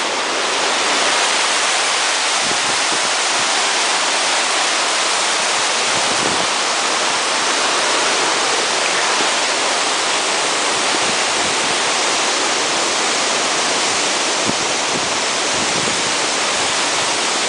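Waterfall rushing steadily close by: a loud, even roar of falling water.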